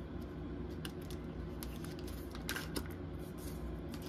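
Tarot cards being handled and sorted: scattered light clicks and taps of card edges, a few louder ones between about one and a half and three seconds in, over a steady low hum.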